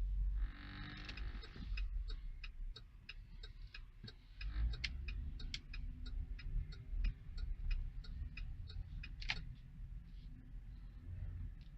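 2017 Chevrolet Traverse's 3.6-litre V6 running with a low rumble and a regular sharp ticking, about three to four ticks a second, ending in a louder click near the end. It is the vibration noise the owner complains of, felt in the dashboard and not cured by three dealer repair attempts.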